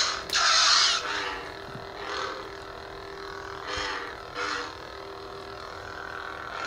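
Hasbro Anakin Skywalker toy lightsaber's electronic hum, steady, with whooshing swing sounds as the blade is moved. The loudest swing comes right at the start, with weaker ones about two, four and four and a half seconds in.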